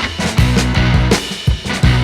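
Background rock music with bass, guitar and a steady drum beat.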